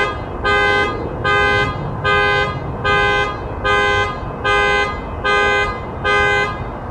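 Car alarm sounding a steady series of horn honks, each about half a second long and a little over one a second, stopping shortly before the end.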